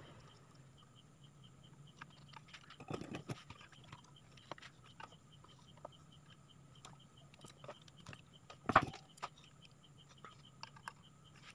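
Faint scattered clicks and rustles of hands handling wires, a circuit board and a soldering iron inside a metal amplifier chassis, with a cluster of knocks about three seconds in and one sharp, much louder knock about nine seconds in.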